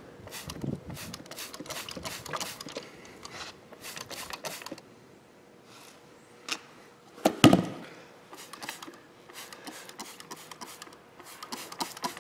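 A small tubeless lawn tractor tire on its steel wheel being handled and turned over on a wet concrete floor: scattered rubbing and knocking, with one heavy thump about seven and a half seconds in as the wheel comes down on the concrete.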